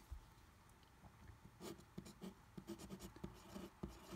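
Pen writing on paper: faint, short scratching strokes as a word is written out, starting about a second in.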